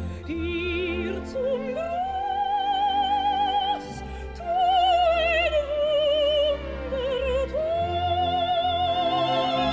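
Operatic solo singing over an orchestral accompaniment. The voice holds several long notes with a wide vibrato, moving to a new note every second or two.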